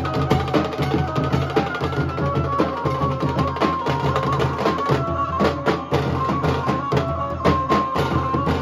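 Nasik dhol band playing: big barrel dhols beaten with sticks in a fast, driving rhythm, dense with sharp stick strikes, and a high stepping melody line over the drumming.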